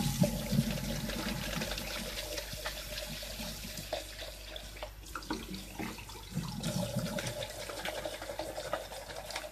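Kitchen tap running, its stream splashing into a plastic bowl in a stainless steel sink as the bowl is filled with fresh water.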